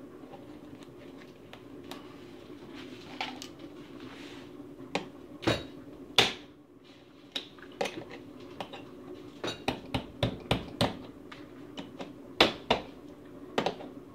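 Metal clicks and clinks of pliers and a steel mounting bracket against the dishwasher's metal top frame as the bracket is fitted and its tabs squeezed. The sharp, irregular taps come sparsely at first and more thickly from about halfway in.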